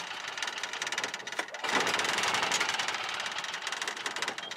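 Rental cart's small engine running with a fast rattle as the cart drives along.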